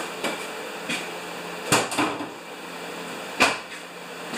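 Light clicks, then two sharp clunks from a pickup truck: the hood release popping the hood latch and a door being shut. A furnace hums steadily underneath.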